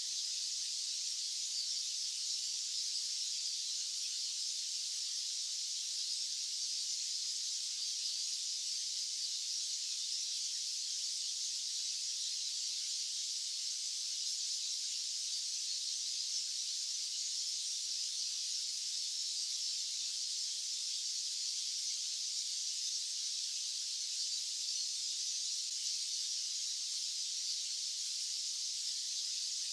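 Steady, unchanging hiss of a white-noise track, its energy high in the treble with no bass.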